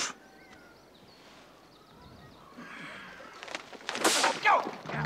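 A man's short, harsh vocal sound about four seconds in, broken into several quick bits, after a few fairly quiet seconds.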